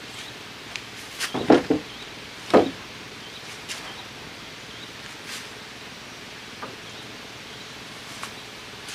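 Old wooden planks knocking together as they are handled and stacked: a quick run of knocks about a second and a half in, one loud knock near three seconds, then a few light taps.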